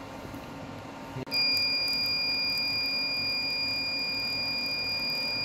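Skin-ablation device's activation tone: a steady high beep that switches on about a second in and holds, sounding while the handpiece's fine tip is applied to a small seborrheic keratosis to burn it off.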